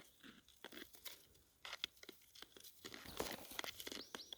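Faint, irregular crunching and crackling of gravel, rock and brush being handled or stepped on at a creek bed, with a brief high rising chirp near the end.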